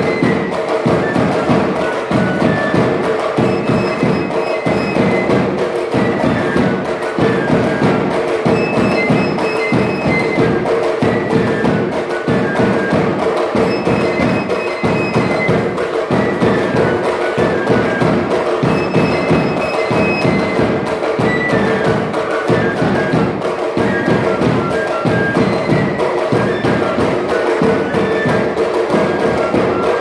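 Tabasco tamborilero music: a carrizo cane flute playing a high, shrill melody over a steady beat on the tamboril drum.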